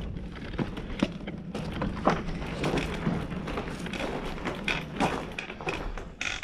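Footsteps crunching on a gravel floor, with scattered knocks and taps.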